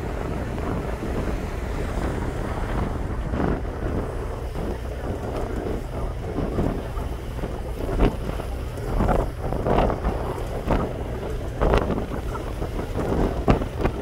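Wind buffeting the microphone on a car ferry's open deck, over the steady low rumble of the ship underway. The gusts come harder and more often in the second half.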